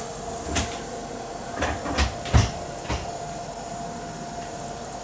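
A few irregular sharp clicks and knocks, about six in the first three seconds, some with a dull thump, over a steady faint hum.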